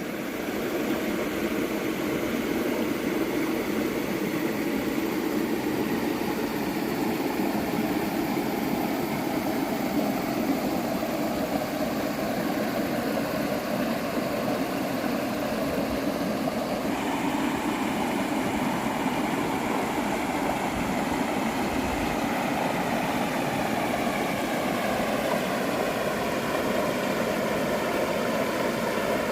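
A vehicle engine running steadily, its pitch drifting slowly up and down, with a sudden change in tone about seventeen seconds in.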